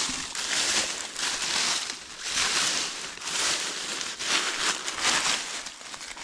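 Footsteps crunching through dry harvested corn stalks and husks, a rustling crunch that swells about once a second.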